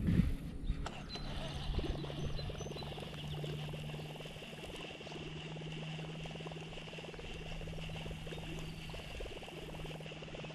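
Steady retrieve of a Googan Squad Revolver topwater plopper bait on a baitcasting reel. The reel's steady whir starts about a second in, under a fast, even patter of plopping from the bait's spinning tail, which is loud.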